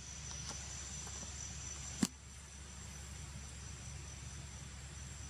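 Insects calling steadily in two high-pitched tones over a low, steady outdoor rumble, with one sharp click about two seconds in.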